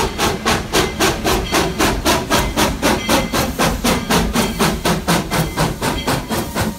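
Narrow-gauge steam locomotive working steadily, its exhaust chuffing from the stack about four times a second.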